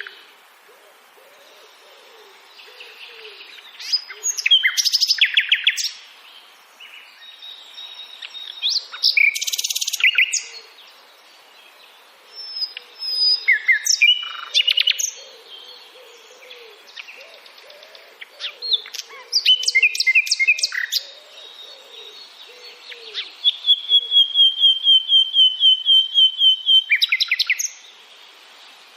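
A songbird singing in separate phrases of quick chirps and whistles every few seconds, ending with a long run of repeated notes about four or five a second. Fainter, lower calls carry on underneath.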